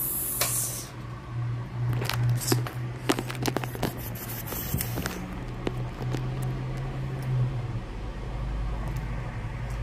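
Rustling and scraping of things being handled, with a run of sharp clicks and knocks in the middle, over a steady low hum.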